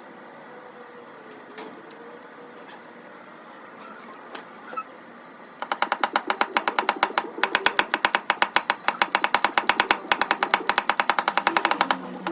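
Rapid, even tapping, about eight light taps a second, starting about five and a half seconds in: a paintless dent repair hammer and knockdown tool tapping down high spots on a car fender. Before that there are only a few faint isolated clicks.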